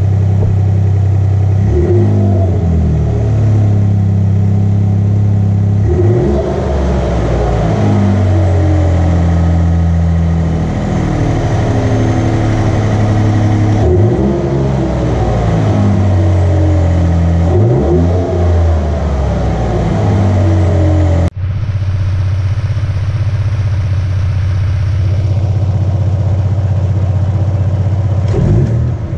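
Ford F-150 engine heard from the engine bay through the stock factory air intake, idling and revved in a series of short blips that rise and fall. After a sudden cut about 21 seconds in it idles steadily again and is revved once near the end.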